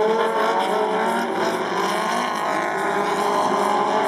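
Autocross buggy engines running hard as the buggies race by on dirt, their pitch rising and falling with the revs.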